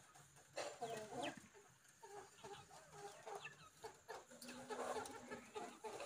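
Birds calling in many short, quick notes, starting about half a second in.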